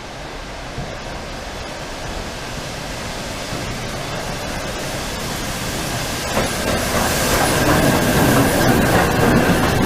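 Train hauled by the Peppercorn A1 Pacific steam locomotive 60163 Tornado approaching through the station, its rumble and wheel clicks growing steadily louder. A steady squeal, likely brakes, joins about seven seconds in.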